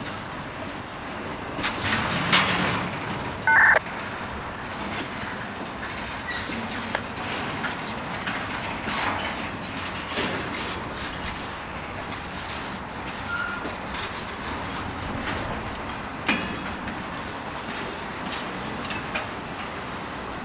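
Intermodal freight cars rolling past on the rails: a steady rumble with irregular wheel clicks and clanks, and one brief, loud high-pitched squeal about three and a half seconds in.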